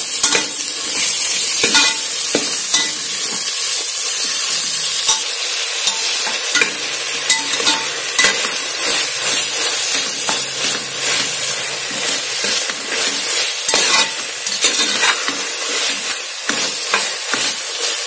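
Tomatoes, onions and green chillies frying in hot oil and ghee in a pressure cooker, sizzling steadily. A slotted metal spatula stirs through them, scraping and knocking lightly against the pot many times.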